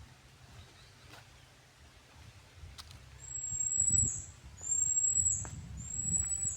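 A bird calling three times: high, thin whistled notes, each held about a second and slipping down in pitch at the end, beginning about three seconds in. Low rumbling runs under the calls.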